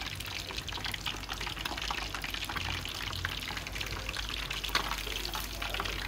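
Whole char (iwana) deep-frying in hot oil: a steady, dense crackle of fine bubbles. Its sound has changed a lot, the kind of change that comes as the fish's moisture cooks out during frying.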